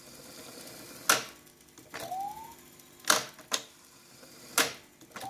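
Sony TC-266 tape recorder's transport keys clunking as they are pressed, four sharp clicks. About two seconds in, the recorded test tone comes up briefly, rising in pitch as the tape gets up to speed. Right at the end it starts again, rising towards a steady pitch.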